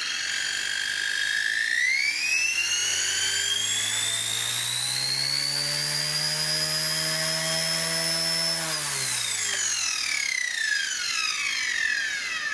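XK K120 micro RC helicopter's brushless motor and main rotor spooling up on the bench: a high whine climbs in pitch over the first few seconds with a lower rotor hum beneath it, then holds steady. About three-quarters of the way through it spools down, whine and hum falling together.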